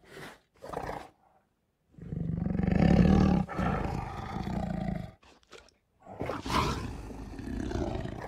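Tiger roaring: the recorded tiger sound of Google Search's 3D animal tiger, in two long roars, the first about two seconds in and the louder of the two, the second about six seconds in.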